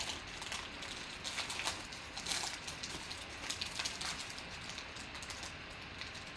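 Foil wrapper of a Panini Black Gold football card pack crinkling and tearing as it is peeled open by hand: an uneven scatter of small crackles and snaps.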